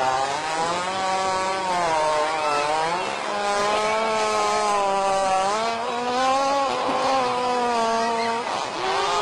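Hippopotamus letting out one long, unbroken fart, low-pitched and wavering slightly, lasting about eight and a half seconds before it breaks off near the end.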